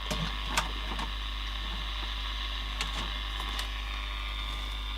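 1960s HMV Sprite transistor radio, just powered up on the bench, putting out a steady hum and hiss from its speaker with no station tuned in, and a few faint clicks along the way.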